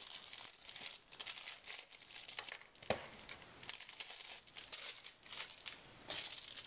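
Small clear plastic bags of sequins crinkling as they are handled and lifted away: a run of irregular crackles, with one sharper click about three seconds in.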